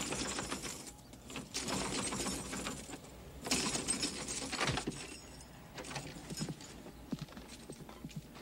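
A ring of keys jangling and scraping against a doorknob lock as a key is worked into it. There are three rattling bursts, followed by lighter clicks near the end.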